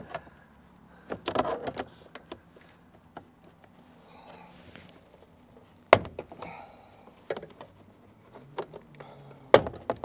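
Plastic retaining clips of a 2016 Nissan Rogue's interior door trim panel popping loose as the panel is pried off the door, a series of clicks and knocks with the sharpest snaps about six seconds in and again near the end.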